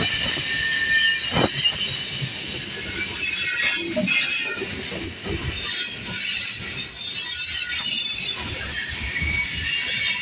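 Freight cars (covered steel coil cars and a gondola) rolling past close by, their wheels squealing in several high steady tones. A couple of short knocks come through about a second and a half in and again near four seconds.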